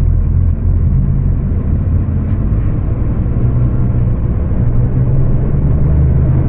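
Scania K250UB city bus's rear-mounted diesel engine running under way, a loud steady low drone whose pitch steps up and down slightly a couple of times as the revs change.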